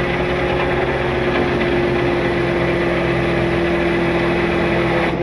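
Tow truck engine running steadily with its hydraulics working, a constant whine over the engine drone, as the wrecker boom extends and the winch cable pays out. The whine dips briefly near the end.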